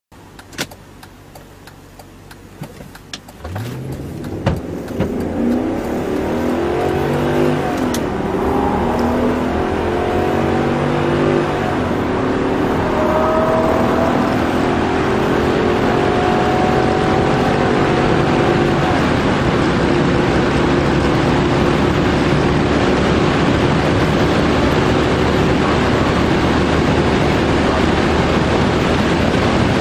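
BMW E39 530i's 3.0-litre straight-six, heard from inside the cabin, idling with a few sharp clicks, then pulling hard under full acceleration. The revs climb through several gears and the pitch drops at each shift, while wind and road noise build until they cover the engine at about 200 km/h.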